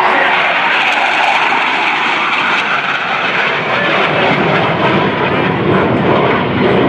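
Jet roar of Blue Angels F/A-18 Hornets, with their twin General Electric F404 turbofans, flying overhead in a climb. The roar has a high hissing edge at first and turns to a lower, rumbling roar in the second half.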